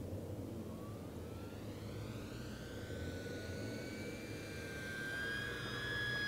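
Electric motor and propeller of an E-flite 1.2 m P-51D Mustang foam RC warbird whining in flight. The pitch glides up, then holds steady and grows louder near the end as the plane comes past, over a steady low rumble.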